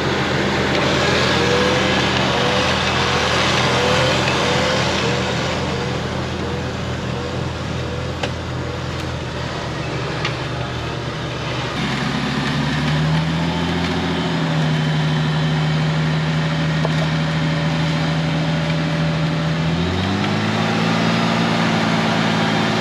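Jeep Cherokee XJ engine running steadily while its electric front winch pulls it through deep mud. The pitch rises to a higher steady note about halfway through and steps up again near the end.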